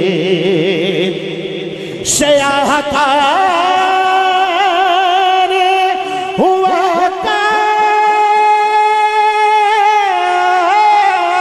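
Man singing a naat (Urdu devotional poem) into a microphone, drawing out long held notes with a wavering vibrato. A new drawn-out phrase begins about two seconds in.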